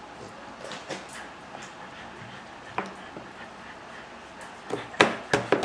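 Baby slapping her hands on a plastic high-chair tray: one sharp smack about three seconds in, then a quick run of louder smacks near the end.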